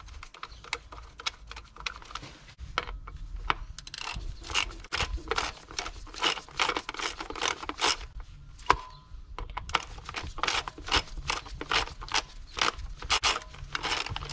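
Socket ratchet clicking as it drives in the 10 mm bolt that holds an ignition coil down. Faint ticks at first, then a steady run of about three clicks a second, with a short break about midway.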